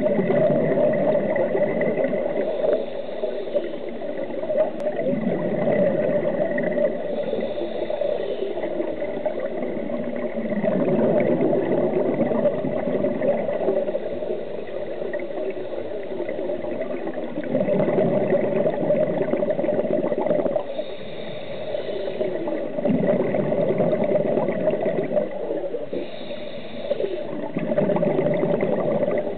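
Scuba diver breathing through a regulator underwater: a short hiss on each inhale, then a longer gurgling rush of exhaust bubbles on each exhale, repeating about every five to six seconds.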